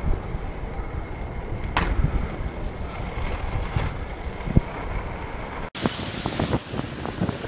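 Skate wheels rolling on pavement while skating along, a steady low rumble with wind buffeting the microphone. The sound cuts out for an instant near the end and comes back brighter.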